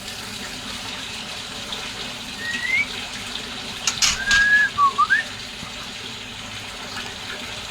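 A few short whistled notes over a steady hiss: a rising whistle about two and a half seconds in, then a held note amid a handful of sharp clicks and a quick dip-and-rise whistle around four to five seconds in.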